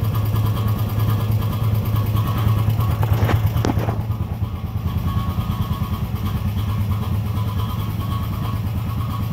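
Honda TRX500 ATV's single-cylinder engine idling steadily in neutral, with two short clicks a little over three seconds in.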